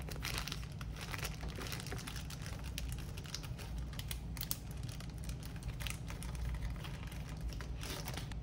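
Plastic zip-top quart bag crinkling as it is handled, with many small clicks as the zipper seal is pressed shut and the air squeezed out, over a low steady hum.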